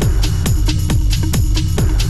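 Electronic dance music with a fast, steady kick-drum beat, about four beats a second.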